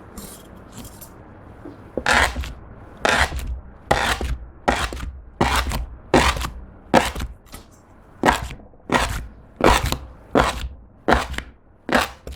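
Clear slime mixed with eyeshadow powder being pressed and worked by hand, a regular series of about fourteen sharp, noisy presses with a low thud, roughly one every 0.7 seconds, starting about two seconds in.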